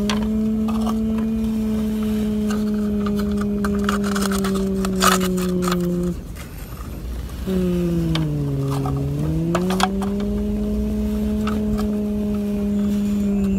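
Imitation excavator engine sound: a steady engine-like drone, heard twice with a short gap about 6 seconds in. Each time it starts with a dip in pitch, holds steady, then falls away. Rocks and dirt scrape and click as the toy excavator's plastic bucket digs into the pile, loudest about 5 seconds in.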